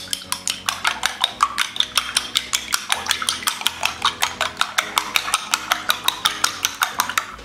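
Spoon rapidly tapping against a small bowl while two raw eggs are beaten, a quick even clicking of about seven strokes a second.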